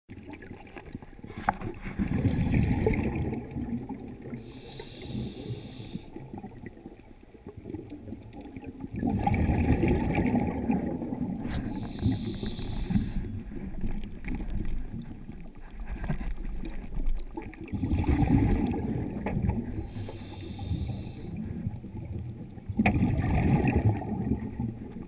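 Scuba diver breathing through a regulator underwater: a low bubbling rumble on each exhale, followed by a short hiss on each inhale, about four breaths several seconds apart.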